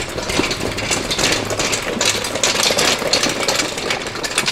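Homemade rubber snow track assembly rolled by hand over a concrete floor: a steady, dense clattering rattle of the track, its idler and bogie wheels, and its frame. The frame is only tack-welded and the track is loose, so parts that should stay put are moving and rattling.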